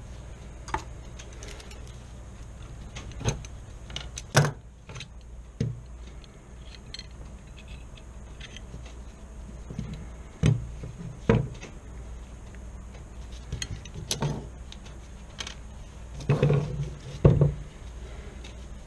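Small steel parts of a Marlin Camp 9 carbine's action clicking and knocking as the fire control group is worked and pushed against the receiver, with several louder knocks among lighter clicks. The parts are not seating because the bolt-stop spring and the disconnector spring have been swapped.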